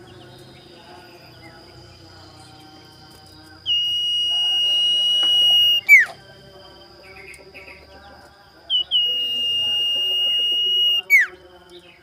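Common iora giving two long, level whistles of about two seconds each, each ending in a quick downward slur. It is the challenge call of a bird seeking a rival. A faint steady high tone runs underneath.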